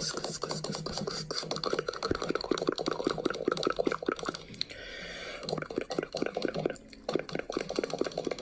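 A rapid run of short clicks and pops, several a second, broken by a brief hiss about halfway through.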